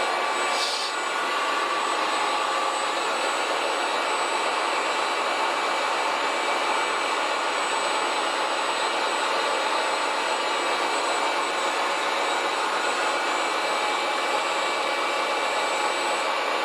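Steady whir of the electric motors and gearboxes of RC construction models running, with a faint high whine over it.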